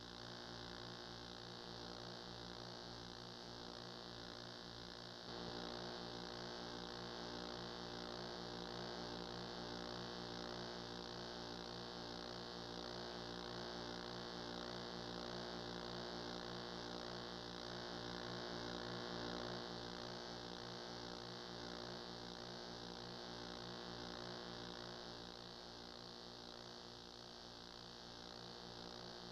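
Steady electrical mains hum with a stack of buzzy overtones and a layer of hiss, with no game sound; it gets slightly louder about five seconds in. This is the noise floor of an old game-film transfer with no recorded sound.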